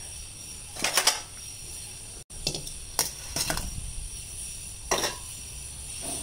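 Stainless-steel plate and bowl clinking and knocking together as cut tomatoes are tipped from the plate into the bowl: a double clink about a second in, a cluster of clinks in the middle, and one more near the end, over steady background noise.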